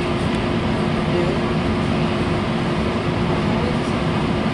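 Steady running noise inside a passenger train car standing at a station platform: a low rumble with a constant mid-pitched hum.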